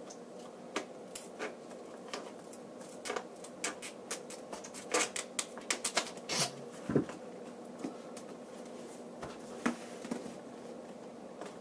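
Screwdriver prying copper staples out of a cardboard box lid: a run of irregular sharp clicks and short scrapes, busiest around the middle.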